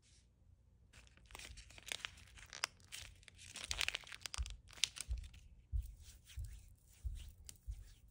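Foil skincare sachet being torn and crinkled as it is squeezed out. A dense crackling starts about a second in and thins to scattered clicks in the second half.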